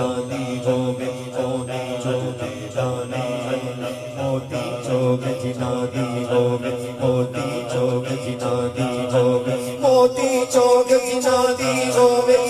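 A man chanting a hamd (devotional praise of Allah) into a microphone, over a steady droning chant behind him. The voice grows louder and brighter about ten seconds in.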